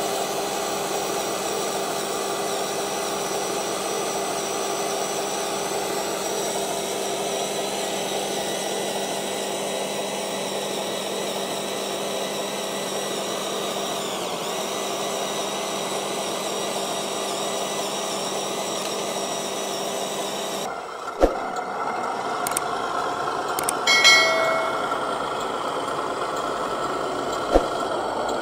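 Electric drive motor and gearbox of a radio-controlled Scania tractor truck whining steadily as it crawls along under load. About 21 seconds in the sound changes abruptly to a lower running noise, with two sharp clicks and a short tonal burst in between.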